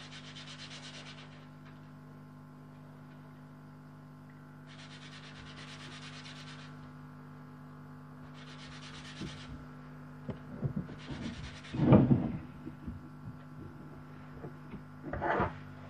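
Small wooden part being hand-sanded in several short passages of rubbing, followed by a few wooden knocks as pieces are handled and set on the bench, the loudest about twelve seconds in. A steady low hum runs underneath.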